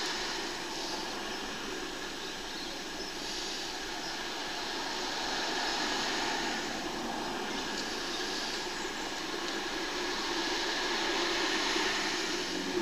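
Steady hiss of road traffic passing, swelling gently now and then.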